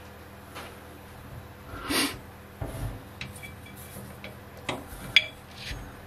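Hands handling a steel workpiece held in a lathe that is not cutting: a soft rubbing swish about two seconds in, then a few light knocks and a sharp metallic clink just after five seconds, over a faint steady hum.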